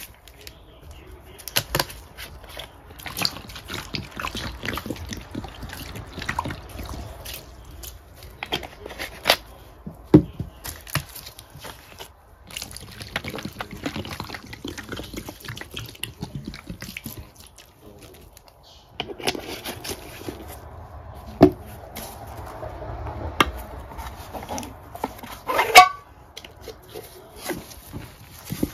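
Plastic bottles of Ajax liquid cleaner handled with rubber gloves, and the green cleaner poured and squirted onto wet sponges in a stainless steel bowl: liquid glugging and dripping among frequent clicks and crackles of bottle handling, with a short squeak near the end.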